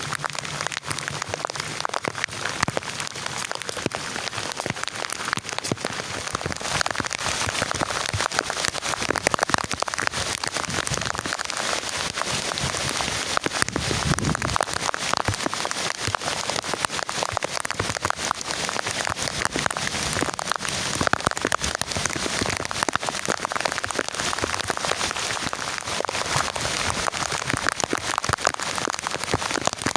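Heavy rain falling steadily, a dense hiss of countless drops striking a surface, with a brief low rumble about halfway through.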